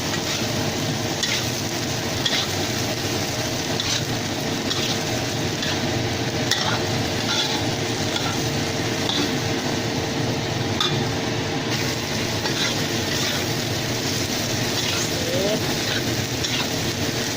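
Green beans, baby corn and carrots sizzling in a hot pan while being stir-fried, with a spatula scraping or tapping the pan about once every second or so. A steady faint hum runs underneath.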